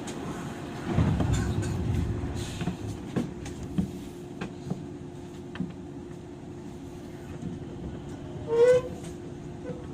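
Onboard sound of a JR 103-series commuter train car: a steady hum with scattered knocks, fuller for a second or so near the start. About eight and a half seconds in, a short wavering high tone sounds.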